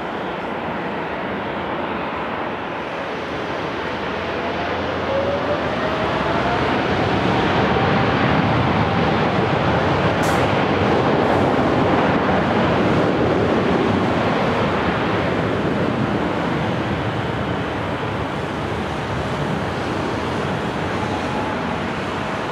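Jet airliner engines at takeoff thrust: a steady roar that swells to its loudest about halfway through and then slowly eases, with a faint whine rising in pitch during the build-up.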